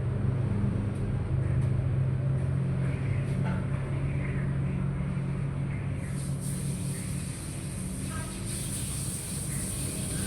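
A steady low mechanical hum, with a few faint short high-pitched sounds in the middle.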